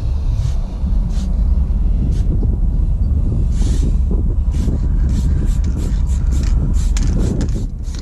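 Aerosol spray-paint can hissing in short bursts, one longer spray about three and a half seconds in, then many quick ones in a row. A steady low rumble sits under it throughout.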